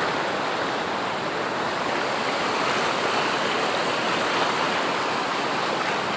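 Floodwater rushing steadily over a washed-out road: a constant loud rush of turbulent, fast-flowing muddy water.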